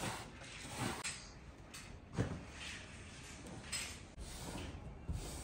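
A cat climbing a wooden cat tree: a few soft thumps and knocks of its paws landing and shifting on the wooden platforms, the loudest about two seconds in.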